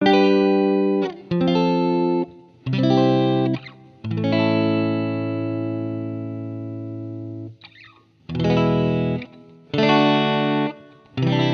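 Music: distorted electric guitar playing a series of held chords with short breaks between them, one ringing on for over three seconds and slowly fading.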